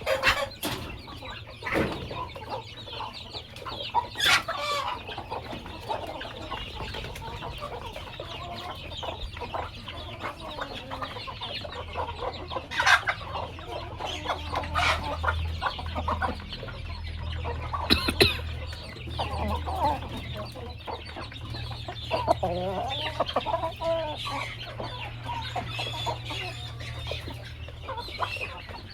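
A flock of domestic chickens clucking continually, many short calls overlapping, with a few sharp clicks or knocks among them.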